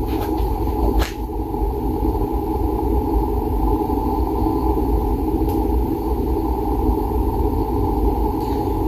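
A steady low rumble, with a faint click about a second in.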